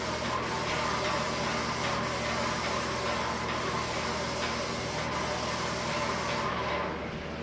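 Airless paint sprayer spraying pre-catalyzed lacquer: a steady hiss from the gun over a steady hum, with a faint tick about every second and a half. The spray stops near the end.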